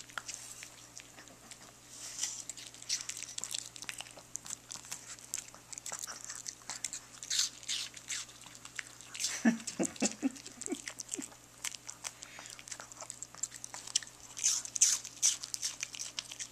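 Miniature Pekingese crunching and chewing pieces of raw apple: irregular wet crunches and mouth smacks, with a brief low pitched vocal sound about ten seconds in.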